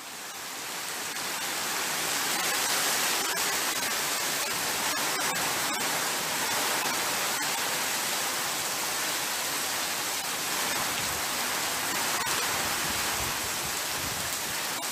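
Heavy hail and rain pelting down in strong wind: a dense steady hiss that swells up over the first couple of seconds, with scattered sharp ticks of hailstones striking.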